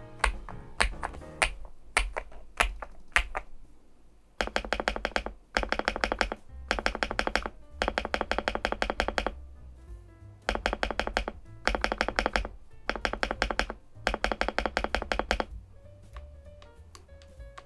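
Typing on a Weikav Stars75s mechanical keyboard with an aluminium case and PBT keycaps. It starts with a few separate key presses, then comes a series of fast bursts of rapid keystrokes, each about a second long, with short pauses between them. Background music plays underneath.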